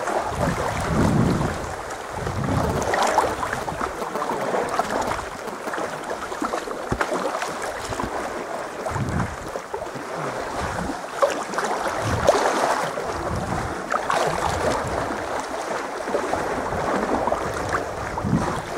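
Sea water sloshing and lapping around a sea kayak, with wind buffeting the microphone in irregular low gusts.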